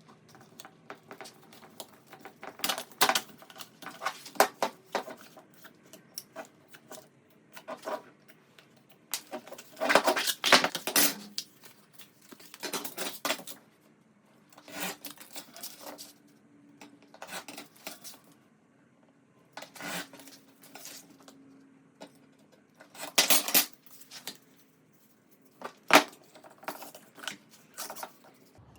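Irregular metallic clinks and clatter of metal parts and tools being handled, in scattered clusters of short knocks.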